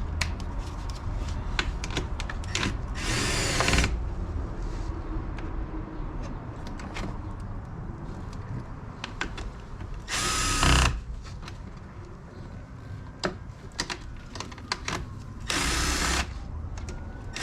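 Cordless power driver spinning out 10 mm bolts in three short bursts, each under a second, with light clicks of tools and parts in between.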